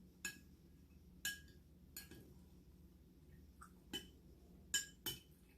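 A spoon clinking against a bowl, six or seven light, separate clinks, some ringing briefly, while she eats yogurt out of it.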